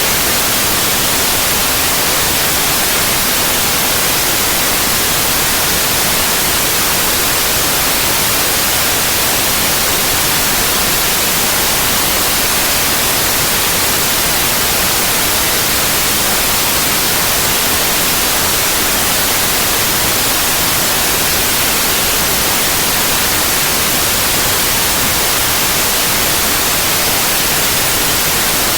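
Steady synthetic white noise: an even, unbroken hiss with no changes, strongest in the high frequencies.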